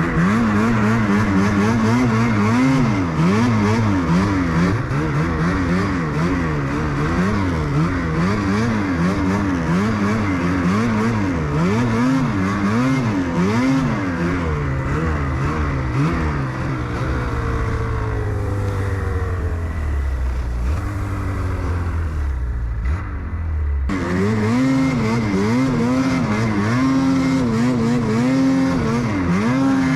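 Ski-Doo snowmobile engine revving up and down as it is ridden, its pitch rising and falling every second or so. It runs lower and steadier for a few seconds past the middle, breaks off abruptly, then picks up revving again.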